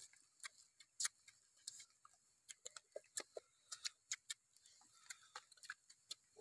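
Faint, irregular clicks and smacks of people chewing and gnawing roasted goose meat off the bone, a few per second.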